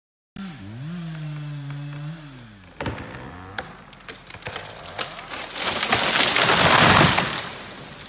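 A chainsaw revs up, holds at speed and winds down. Then a pine tree being felled gives a run of sharp cracks and a swelling crash of breaking wood and branches, loudest about seven seconds in.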